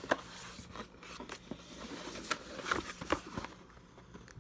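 Light handling sounds: scattered small clicks and brief scrapes of the boxed garden tool set's cardboard and plastic packaging being turned over in the hands.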